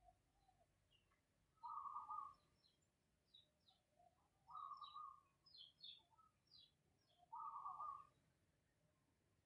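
Faint snoring: three rough snores, each under a second, coming about every three seconds in a sleeper's breathing rhythm. Faint high bird chirps come in between.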